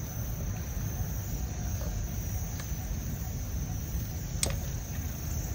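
Steady low rumble with a few faint, sharp clicks and taps as small fish are picked over by hand in a plastic basket.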